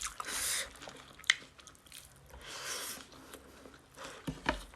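Close-miked chewing and mouth noises of people eating pork and rice, with a few short clicks from utensils or teeth.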